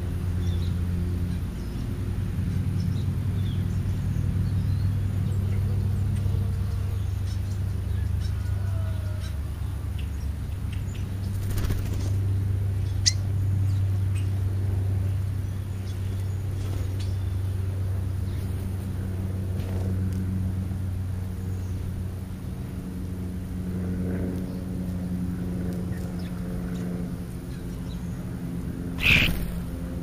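A steady low mechanical hum with several overtones, like a running motor or engine, under a few faint short bird chirps from feeding starlings. One brief, louder sound comes near the end.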